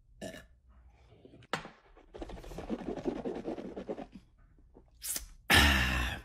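A person drinking from a glass, followed by about two seconds of rapid, crackling wet mouth noise with liquid held in the mouth. Near the end comes a loud, breathy burst from the mouth.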